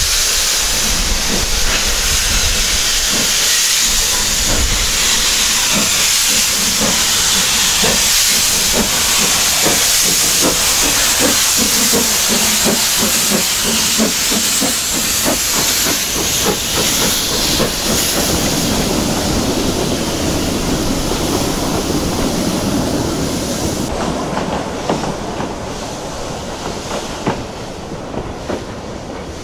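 Two narrow-gauge steam tank locomotives double-heading a departing train, with a loud hiss of steam from the open cylinder drain cocks over a rhythm of exhaust chuffs as they pull away. About three-quarters of the way through the hiss drops away and the sound grows quieter as the train draws off.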